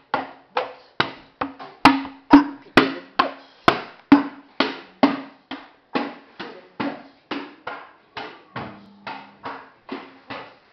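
Rhythmic beating: regular sharp knocks about three a second, each with a short ringing tail, loudest a few seconds in and growing gradually softer.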